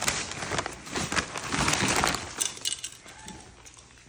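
Mail packaging being torn and handled: a dense run of crinkling, rustling and light clinks that dies down after about two and a half seconds.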